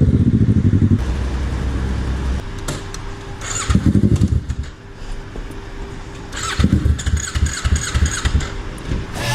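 Kawasaki Z650's parallel-twin engine being cranked on the electric starter in repeated short attempts, turning over in rhythmic pulses without catching: the bike won't start.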